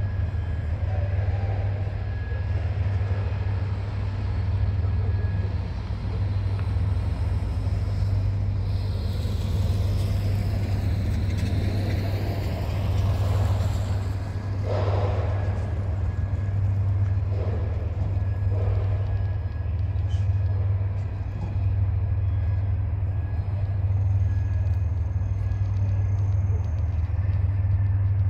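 Diesel freight locomotive engine running with a steady low rumble. A road vehicle passes with a rising and fading whoosh between about eight and fourteen seconds in.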